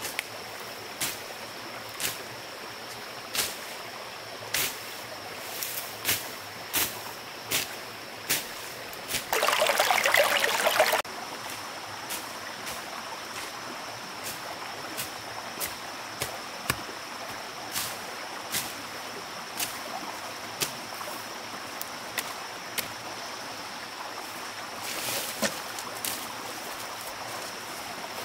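Steady rush of a running stream with a thin high tone above it. Sharp knocks come about once every second and a quarter for the first nine seconds, then a loud two-second burst of noise, then lighter scattered knocks.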